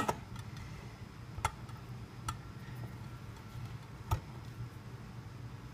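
About four sharp clicks a second or two apart: a smooth-edge manual can opener knocking and clamping on the rim of a large steel can as it is fitted on.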